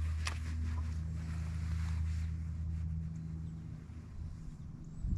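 Boat motor running with a steady low hum that fades away about three seconds in, with a few light clicks near the start.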